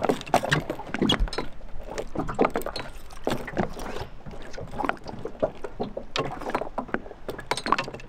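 Water slapping and splashing irregularly against the side of an inflatable dinghy, with small splashes from a hand held in the water and occasional knocks on the boat.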